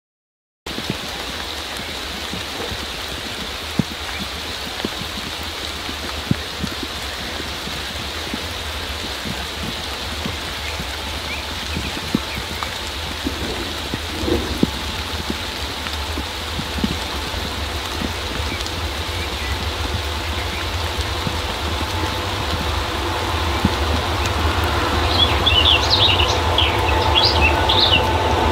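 Steady rain with scattered drops ticking close by, over a low rumble; it starts after a brief silence. In the last several seconds an approaching pair of DR class E42 (242) electric locomotives with their train grows steadily louder with a steady hum, and a bird chirps a few times near the end.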